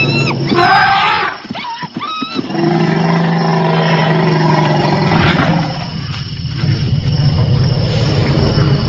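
African elephant trumpeting with high, arching calls in the first second or so, then long low roaring calls for several seconds with a short lull about six seconds in: an angry elephant's display toward lions.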